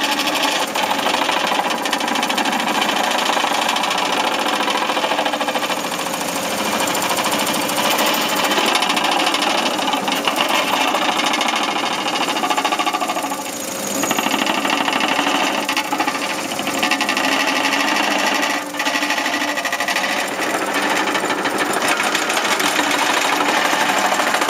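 Vibratory compaction bucket on a 0.8 m³ backhoe, vibrating against the soil to compact it, a loud, fast, steady rattling hammer. It eases off briefly twice, about halfway through and again a few seconds later.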